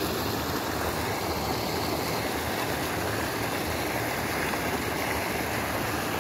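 Steady rush of water pouring over a small weir into the stream.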